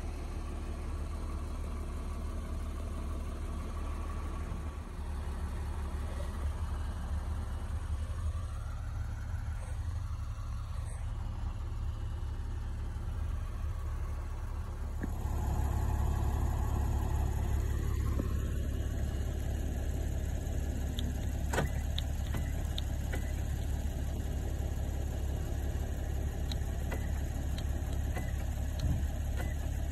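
Lexus GX470's 4.7-litre V8 idling, heard from inside the cabin, growing louder about halfway through. A few light clicks sound in the second half.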